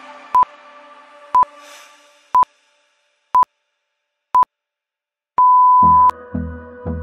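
Interval timer beeps counting down the rest period: five short, same-pitched beeps a second apart, then one longer beep marking the start of the next work interval. Electronic music fades out over the first couple of seconds and comes back in with a steady beat at the long beep.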